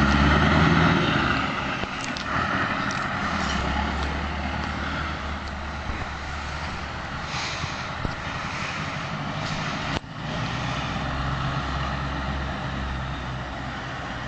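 Scania R500 truck's V8 diesel engine running with a steady low rumble, loudest in the first second or so.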